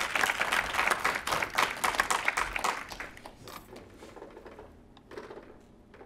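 Audience applauding, the clapping fading out about three seconds in.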